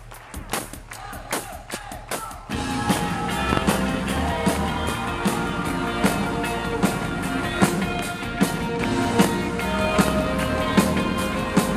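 Live rock band with keyboards and drum kit opening a song: a few sparse taps, then the full band comes in suddenly about two and a half seconds in, with held keyboard chords over a regular drum beat.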